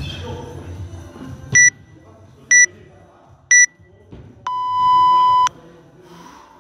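Workout interval timer counting down the end of a work interval: three short, high beeps a second apart, then one longer, lower beep of about a second marking the switch to rest.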